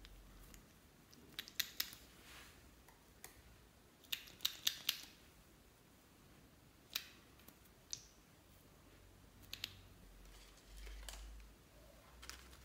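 Scattered sharp plastic clicks and snaps in small clusters, with a few soft rustles between them, as a plastic lollipop-shaped toy is pulled apart and handled.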